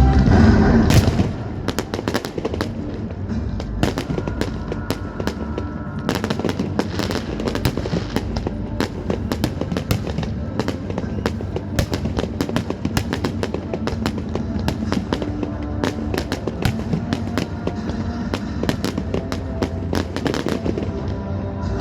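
Fireworks display: rapid, dense bangs and crackles of aerial shells going off one after another, with a loud burst of blasts in the first second. Music plays underneath.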